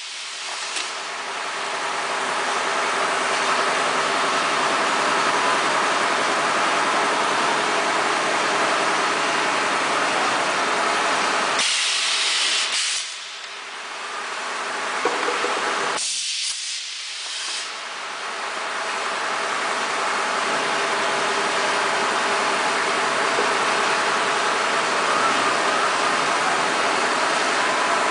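PET bottle blow moulding machine running with a steady mechanical hum and hiss. Twice, about halfway through and again a few seconds later, a loud hiss of compressed air bursts out for about a second.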